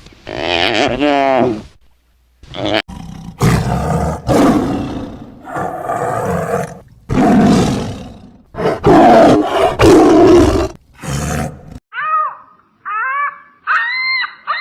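Big cat giving a run of about eight loud, rough roars. Near the end, short honking bird calls follow.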